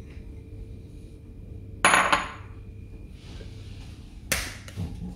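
Kitchen dishes being handled: a sharp clink with a short ringing about two seconds in, then a knock just past four seconds and two lighter taps near the end.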